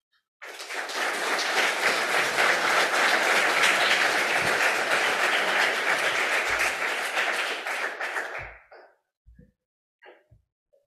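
Audience applauding after a talk. The clapping starts about half a second in and dies away after about eight seconds.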